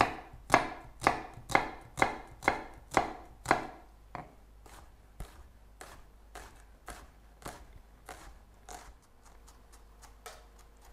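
Chef's knife chopping an onion on a wooden cutting board, dicing it fine: about eight firm strokes at an even two a second, then lighter, quieter cuts for the rest of the time.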